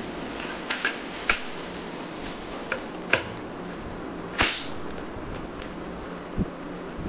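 Sharp plastic clicks and knocks from a toy crossbow rifle being handled, about half a dozen, with a louder snap a little after halfway and a dull thump near the end, over a steady hiss.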